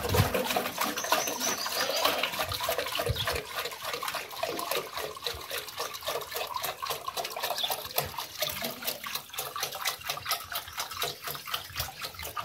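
Water pouring from a blue plastic jerrycan's spout into a metal bucket, splashing into the water already in it, with a quick, regular run of gurgles from the can.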